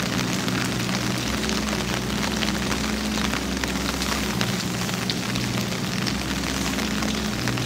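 Steady rain falling, with many individual drops ticking close by, over a low steady hum that swells and fades.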